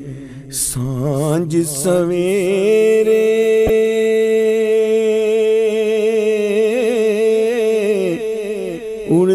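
A man's voice singing a naat unaccompanied, with ornamented runs and then one long held note with vibrato that falls away near the end.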